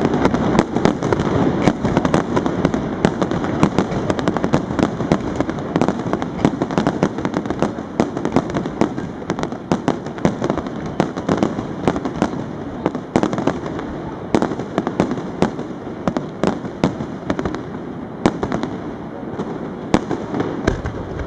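Fireworks display with shells bursting continuously: a rapid, irregular run of sharp bangs and crackling.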